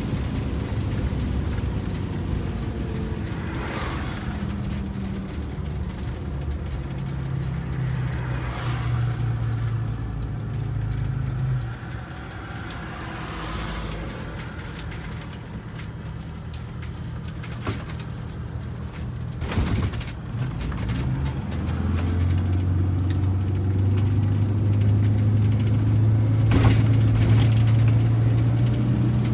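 Detroit Diesel 8V92TA two-stroke V8 diesel, freshly rebuilt with four new pistons and liners, running under load, heard from inside the bus's cab. It eases off about twelve seconds in, then grows steadily louder from about twenty-two seconds as it pulls hard; a couple of sharp knocks come through near the end.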